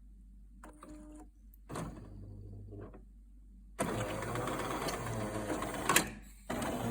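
Jura E60 bean-to-cup coffee machine working: a few faint clicks, then a low machine run from about two seconds in. It turns into a loud steady mechanical buzz from about four seconds in, which breaks off briefly near the end and starts again.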